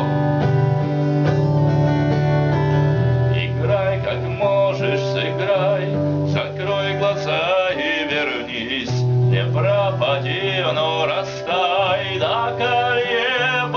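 A song: a man singing with vibrato over guitar and bass accompaniment. The voice comes in strongly about four seconds in.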